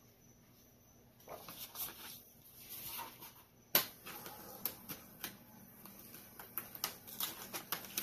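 Paper and plastic-packed stamp sets being handled: rustling with many light clicks, starting about a second in, and one sharp click near the middle.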